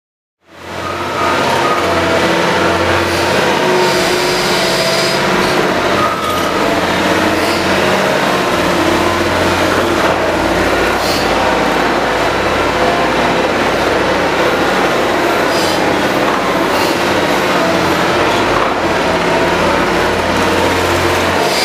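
Liebherr R 944 C tunnel excavator working the rock face: a loud, steady grinding din over a low engine hum. It fades in about half a second in.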